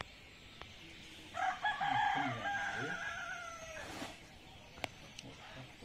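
Rooster crowing once, a single call of about two and a half seconds.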